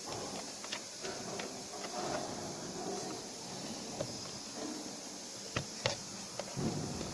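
Scattered light clicks and taps over a faint rustle, with a dull thud near the end: small parts and casing being handled during the repair.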